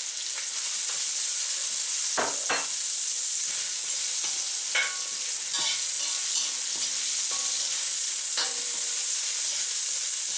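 Onions, bell pepper strips and ginger sizzling in hot oil in a wok while a spatula stirs them, its scrapes and knocks against the pan coming now and then over the steady sizzle.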